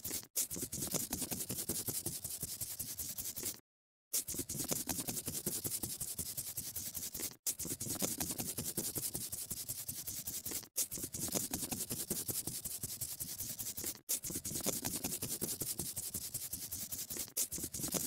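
Scribbling sound of colouring on paper: fast, scratchy back-and-forth strokes. It comes in stretches of about three seconds, each broken off by a short gap, with a half-second silence about four seconds in.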